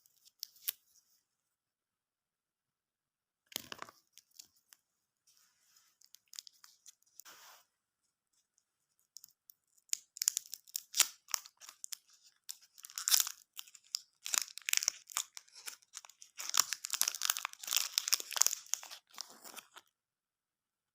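A plastic snack wrapper being torn open and crinkled in irregular rustling, crackling bursts, sparse at first and busier in the second half.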